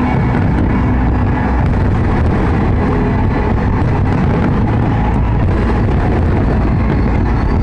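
Massed fireworks going off continuously, the many bursts blending into one steady, heavy rumble with faint crackling above it.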